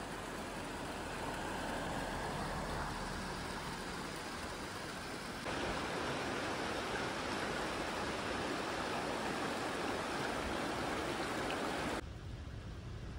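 Shallow stream water running over grass and stones, a steady rushing noise. About five and a half seconds in, a louder steady rush takes over, and it drops back down near the end.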